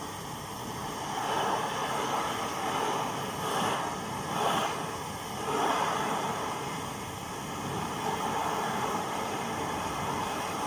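Swiss military two-burner petrol field stove, both pressure burners running with a steady roaring hiss. The sound swells several times in the middle as one burner flares with a yellow flame, then settles back to an even blue-flame roar.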